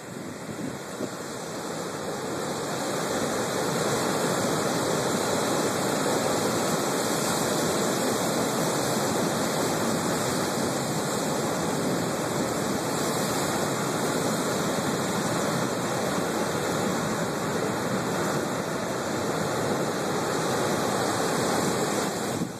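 High Pacific surf breaking on a rocky shore: a steady rush of churning water that swells over the first few seconds and then holds.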